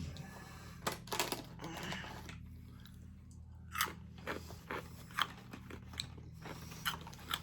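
Crunchy fried corn kernels (Boy Bawang Cornick) being bitten and chewed: a string of sharp, irregular crunches.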